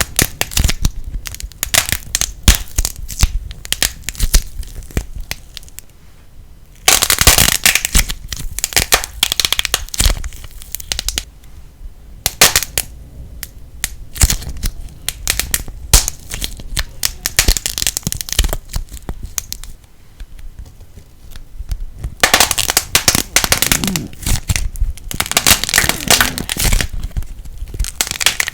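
Light plasticine being squeezed and pressed by hand, crackling and popping in rapid runs of sharp clicks, with two longer, denser bursts of crackling.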